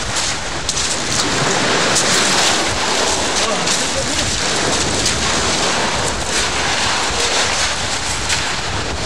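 Surf breaking and washing over a pebble beach, a steady crackling hiss, with wind buffeting the microphone.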